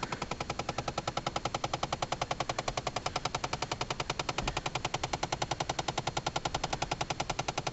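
Rapid, steady clicking from behind the centre console of a 2011 Chevy Impala, about ten clicks a second, heard inside the cabin. It is an unexplained fault noise that the owner feels through the heater and air-conditioning ductwork, and it starts on its own even with the car switched off.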